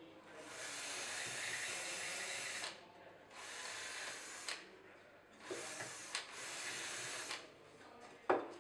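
A power tool running in several bursts that start and stop, the longest over two seconds, with a sharp knock near the end.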